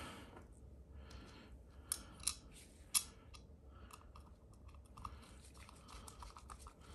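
Faint handling noise of small objects: light rustling and scattered small clicks, with three sharper clicks about two and three seconds in.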